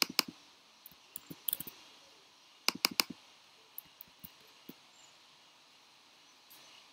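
Sharp clicks of a computer mouse and keyboard, about a dozen in the first five seconds, including a quick run of four a little before three seconds in.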